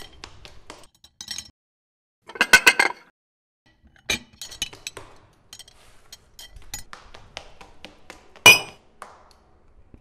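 Clinks and taps of dishes. A quick run of several clinks comes a little after two seconds in, lighter scattered taps follow, and one loud clink lands about eight and a half seconds in.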